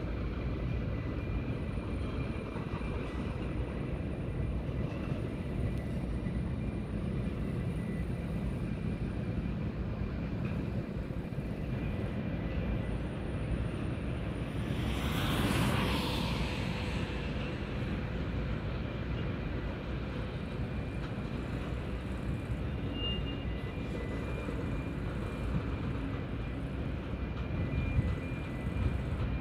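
Steady low rumble of a freight train running through a rail yard, with faint steady tones above it. About halfway through, a brief rushing sound swells and fades, dropping in pitch as it goes.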